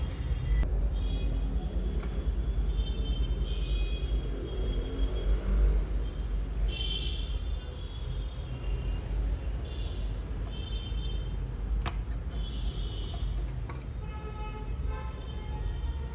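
Steady low rumble of background road traffic with short, high vehicle-horn toots now and then, and a single sharp click about three-quarters of the way through.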